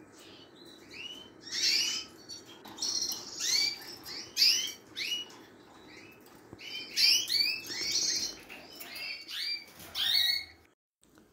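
Caged European greenfinch and canaries chirping: quick runs of short, high, arched chirps with brief pauses between runs, stopping about a second before the end.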